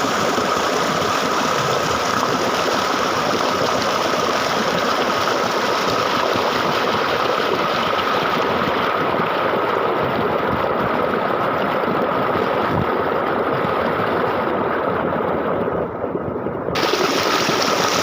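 Steady rush of flowing water, even and unbroken. Near the end the hiss briefly loses its high end, then comes back abruptly.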